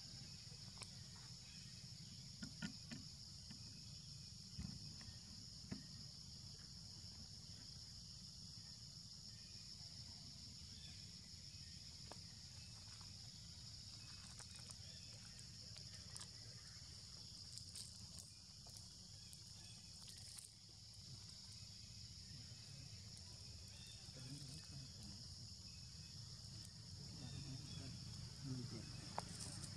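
Faint, steady, high-pitched insect drone, with a low rumble underneath and a few soft clicks.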